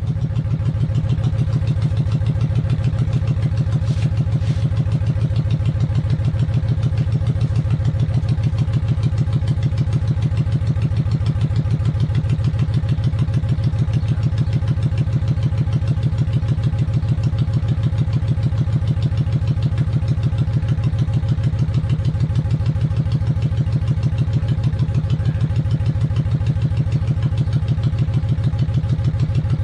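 1995 Honda VLX 600's V-twin engine idling steadily, with an even, rapid pulse.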